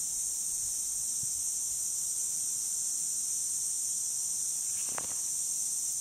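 Steady high-pitched hiss of lawn sprinkler heads spraying water, with a soft tick about five seconds in.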